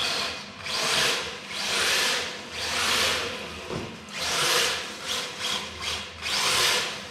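RC drift car on an MST chassis sliding across a tiled floor, its drift tyres scrubbing the tile with its electric drivetrain running, in about six swelling surges of hiss roughly a second apart as it is throttled through slides.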